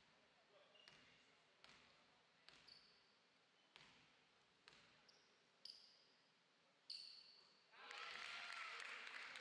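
A basketball is bounced on a hardwood court, faintly, about once a second, eight times, each knock echoing in the hall, with brief high squeaks after several of them. This is the free-throw shooter dribbling at the line. Near the end a loud wash of voices rises from the hall.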